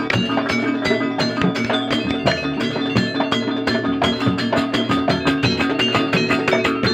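Live band playing an instrumental passage: quick, dense percussion strokes in a steady rhythm over held melodic notes and plucked strings.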